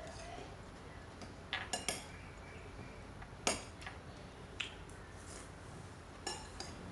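Metal spoon clinking and scraping against a ceramic bowl while eating: a quick cluster of clinks about a second and a half in, the loudest single clink about halfway through, then a couple more.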